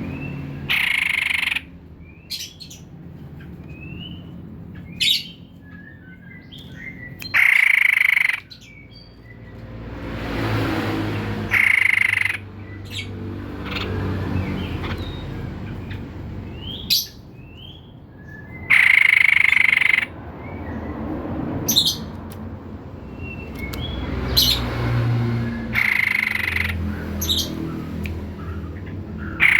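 White-breasted babbler (tepus dada putih) calling: loud, harsh calls about a second long repeated every few seconds, with short high chirps between them, over a low steady hum.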